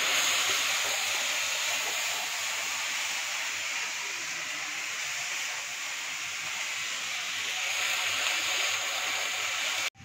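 Chopped ivy gourd sizzling steadily in oil in a frying pan on the stove, half-cooking over a low flame. The sizzle cuts off suddenly near the end.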